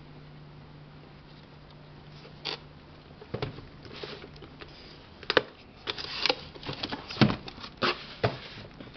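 A cardboard box being handled and opened by hand, with plastic ink bottles and reservoirs inside it. A steady low hum at first, then taps and scrapes of cardboard from about two and a half seconds in. Over the last few seconds come quick clicks and knocks of plastic, the sharpest about seven seconds in.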